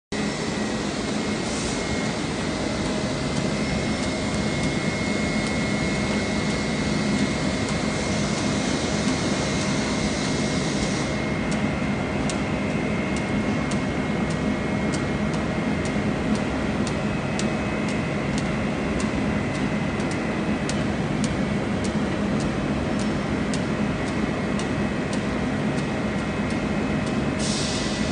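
Steady drone of running machinery with a constant hum; from about a third of the way in, faint regular ticks come about twice a second.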